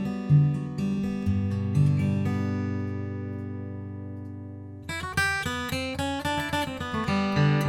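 Gibson J200 Custom Double Vine jumbo acoustic guitar, with a solid spruce top and flame maple back and sides, played solo. A few picked bass notes, then a chord left to ring and fade for about three seconds, then a quicker run of picked notes from about five seconds in.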